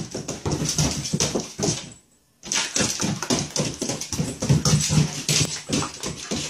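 Shiba Inu whimpering and growling as it spins after its tail, with a dense run of quick scratchy ticks from its claws scrabbling on a wooden floor. It goes briefly quiet about two seconds in, then carries on.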